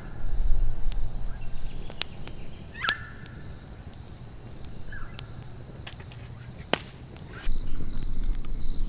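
Steady high-pitched chorus of insects, with a few short chirping calls and a couple of sharp clicks over a low rumble that swells at the start and again near the end.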